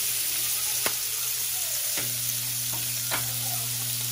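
Oxtail pieces sizzling as they sear in hot olive oil and butter in a cast-iron skillet, a steady hiss broken by three sharp clicks about a second apart.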